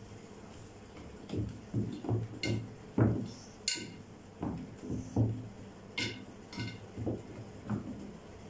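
Hands pressing and spreading dough in a round aluminium baking tray. From about a second in, a series of irregular dull knocks comes as the tray is pushed against the counter, with a few sharper metallic clinks among them.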